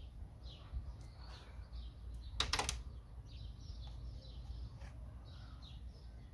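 A brief, loud noise about two and a half seconds in as the ignition coil of a Mercedes M111 engine is worked loose from its spark plug well. Birds chirp repeatedly throughout over a low steady rumble.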